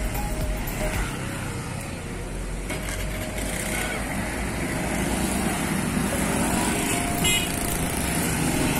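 Road traffic going by: cars and motorbikes passing, a steady rumble of engines and tyres.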